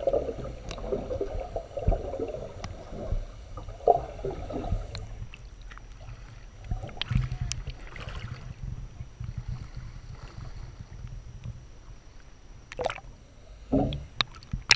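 Seawater sloshing and gurgling around a GoPro camera held at the surface, muffled with a low rumble while it dips underwater. A few sharper splashes and knocks are scattered through it, the loudest near the end.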